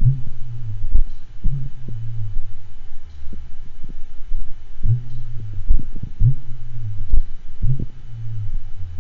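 Recorded heart sounds of a horse with aortic regurgitation and second-degree AV block: slow heartbeats, each followed by a long low diastolic murmur. The rhythm is broken by a particularly long pause with a very long diastolic murmur, the sign of a dropped beat from the AV block.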